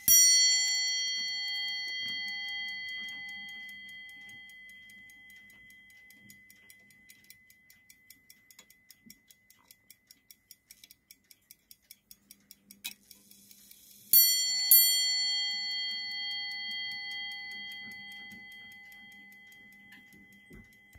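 Ship's clock movement running with rapid, even ticking, its hammer striking a bell: one ringing strike at the start, then two strikes in quick succession about two-thirds of the way through, each ringing on and fading slowly.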